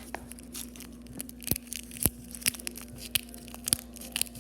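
Irregular crackling and sharp clicks of a homemade fidget toy being squeezed and handled, with two louder snaps about a second and a half and two seconds in.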